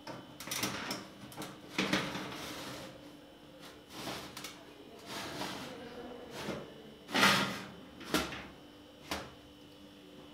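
Metal baking tray and wire oven rack scraping and clanking as they are slid back into an oven: a string of separate scrapes and knocks, the loudest about seven seconds in.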